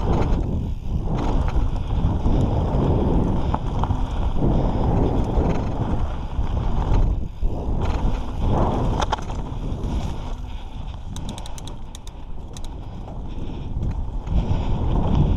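Mountain bike riding down a dirt forest trail: wind buffeting the microphone over the rumble and rattle of tyres and frame on the dirt. A short run of light ticks comes about three-quarters of the way through.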